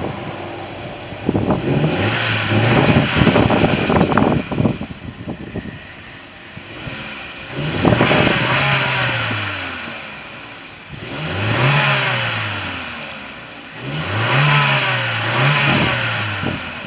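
Turbocharged 1.4-litre four-cylinder engine of a 2014 Chevy Sonic, fitted with a ZZP aftermarket downpipe, being revved from idle several times, each rev rising and falling back. The last two revs come close together, and there is some rattling in the first few seconds.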